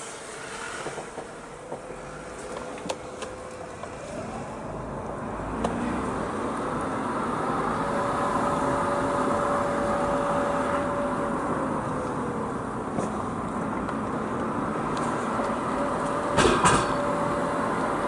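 Mazda RX-8's two-rotor Renesis rotary engine and tyre noise heard from inside the cabin while driving. The engine note rises about four seconds in, holds, and eases back down around twelve seconds, with a couple of sharp knocks near the end.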